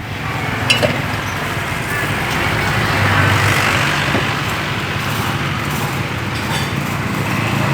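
A motor vehicle's engine running close by with road traffic noise, a steady rumble that swells a little about three seconds in.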